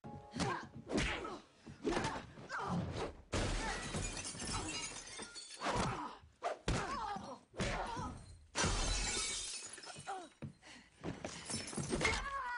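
A fight: glass shattering and repeated blows and thuds, one sharp hit after another, with short cries between them.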